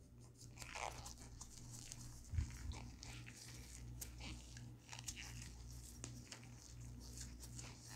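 Faint handling noises of gloved fingers rubbing gun oil over a Glock pistol's slide and barrel: soft rubbing, rustles and small clicks, with a short soft knock about two and a half seconds in, over a low steady hum.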